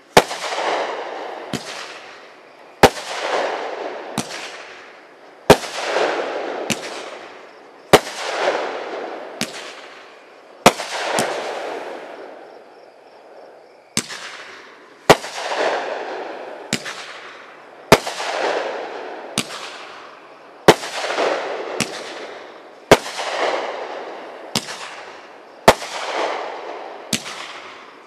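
A 500g fireworks cake, Exploding Concussion, firing shot after shot: sharp loud reports about one every second and a half, each followed by a long fading tail. There is a brief pause about halfway through before the volley resumes.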